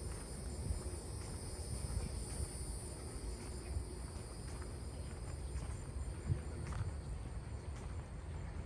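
Steady chorus of trilling insects at several high pitches, over a low rumble and a few faint ticks.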